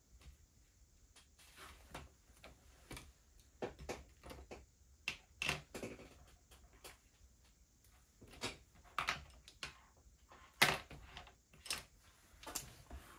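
A series of light, irregularly spaced clicks and taps, about fifteen in all, the sharpest about ten and a half seconds in.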